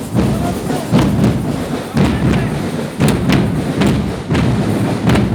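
Heavy drum beats at a steady pace of about one a second, over the background noise of a crowd.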